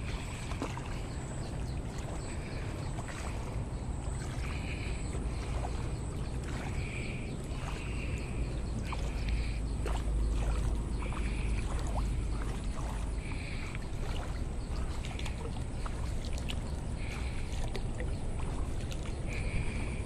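Riverside outdoor ambience: a steady low rumble, with a short high-pitched chirp repeating every second or two and a few faint clicks.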